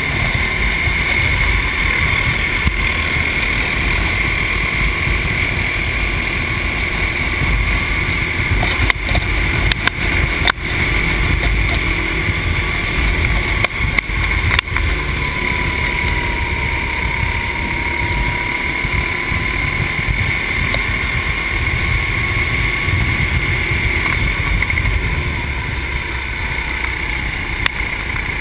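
Racing kart engine running steadily at speed, heard from the driver's seat with heavy wind rumble on the microphone. A few sharp knocks come around ten and fifteen seconds in, and the engine note swells briefly in the second half.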